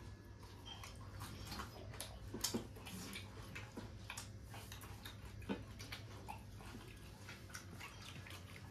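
Quiet eating sounds: irregular soft clicks and smacks of people chewing and handling food with their fingers on steel plates, a couple of louder knocks among them, over a steady low hum.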